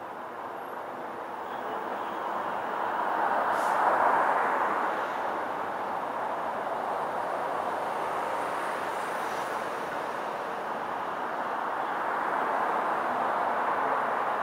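Road traffic, a steady rushing that swells as a vehicle passes about four seconds in, then rises again near the end.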